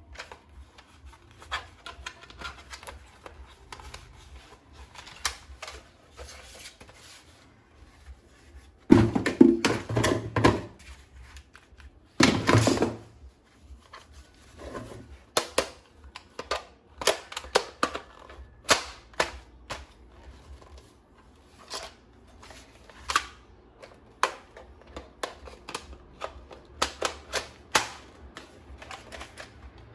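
Irregular clicks and knocks of a plastic toy gun and its parts being handled, with two louder stretches of rattling about a third of the way through.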